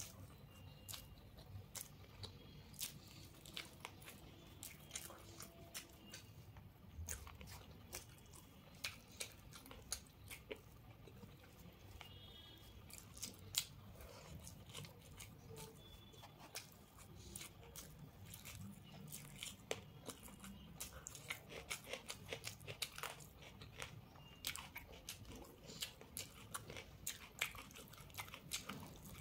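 Close-up eating sounds of a person eating rice and fried food by hand: chewing and crunching bites, with many small sharp mouth clicks and smacks, and fingers mixing rice on a brass plate.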